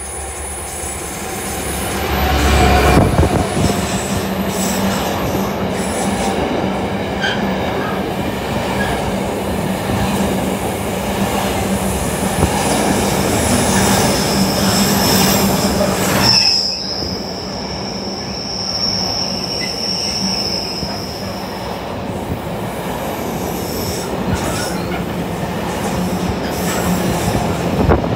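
Container freight train passing close by: the locomotive goes past loudest about three seconds in, then the container wagons rumble and clatter past. About sixteen seconds in, a steady high squeal from the wheels starts suddenly and lasts about five seconds.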